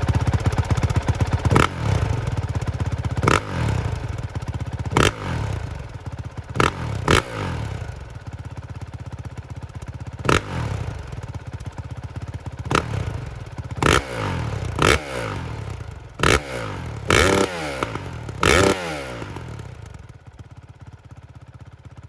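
Honda CRF450 single-cylinder four-stroke dirt bike on its stock exhaust, idling and revved in about a dozen quick throttle blips, each dropping back to idle. The blips come closer together and stretch longer toward the end, then the engine sound dies away.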